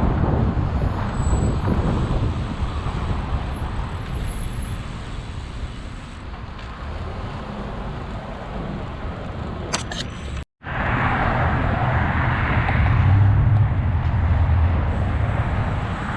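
Wind rumbling over the microphone and road traffic noise while riding a bicycle, with cars going by. It is louder for a few seconds in the second half. The sound cuts out completely for a moment about two-thirds of the way through.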